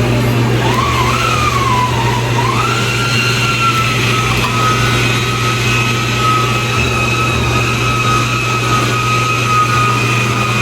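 A steady mechanical drone with a whine that wavers up and down in pitch for the first couple of seconds, then settles into one steady tone.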